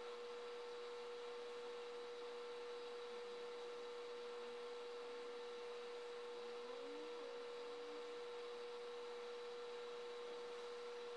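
A steady, faint single-pitched hum over a light hiss, with a few faint short gliding tones about six to eight seconds in.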